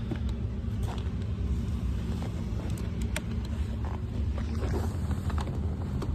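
An engine idling steadily in a low rumble, with a few light clicks and knocks over it.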